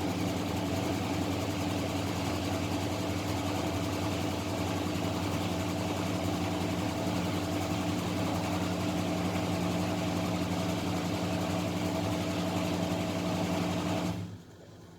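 Candy Formula Inox P 7.71X washing machine running with a steady motor hum and a rushing hiss, which cuts off sharply near the end.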